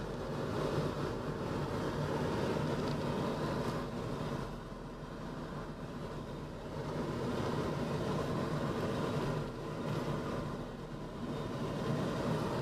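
Car driving along: steady engine and road noise, easing off briefly a couple of times.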